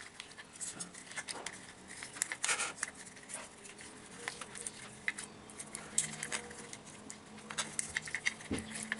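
Light, irregular clicks and rustles of hands handling small headphone parts and cable while threading and knotting the new wire.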